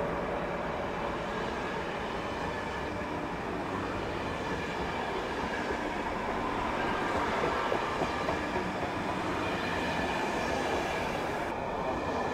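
CP Intercidades train of stainless steel Corail-type coaches rolling past alongside the platform: a steady rumble of wheels on rail, with a faint high ringing above it.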